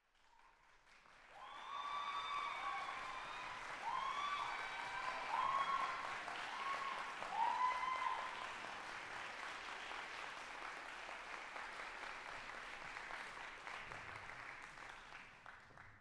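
Audience applauding, swelling a second or so in and fading near the end, with several short cheers from the crowd during the first half.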